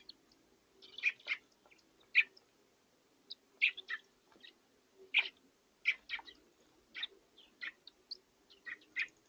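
Young birds chirping: short, sharp chirps, often in pairs, roughly every half second to a second.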